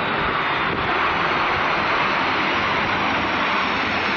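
Jet airliner landing on a wet runway: a steady, even rush of engine and spray noise.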